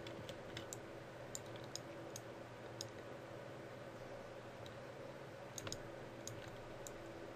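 Faint, scattered clicks of a computer mouse and keyboard, a dozen or so at uneven intervals, over a steady low background hum.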